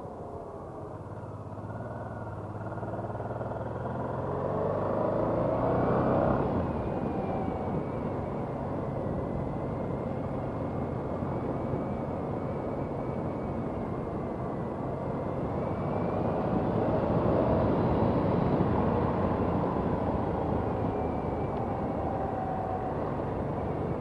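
Honda NT700V Deauville's V-twin engine running on the move, its pitch rising and falling with the throttle, mixed with wind rush on the helmet-mounted microphone. The sound swells twice as the bike picks up speed.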